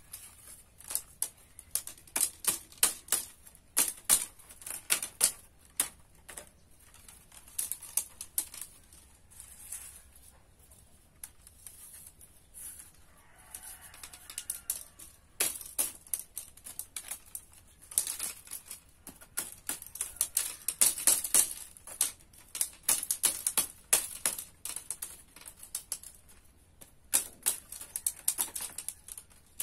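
Thin bamboo strips clicking and rattling against each other as they are woven and tapped into place, in irregular flurries of quick clicks with a lull around the middle.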